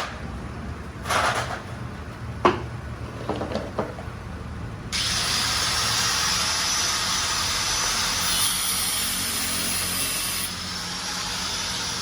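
A few knocks over a low hum, then about five seconds in a loud steady hiss from machinery starts suddenly, with a faint pitch drifting up and down inside it.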